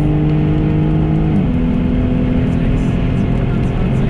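Jaguar F-Type engine heard from inside the cabin at high motorway speed, with a steady engine note over road and wind noise. The note drops to a lower steady pitch about a second and a half in.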